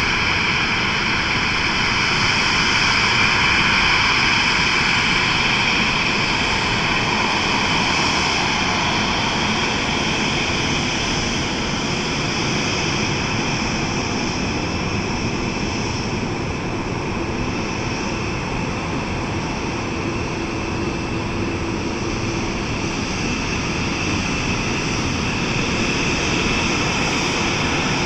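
Boeing 737-800's CFM56-7B turbofan engines at taxi power after landing: a steady high whine over a low rumble.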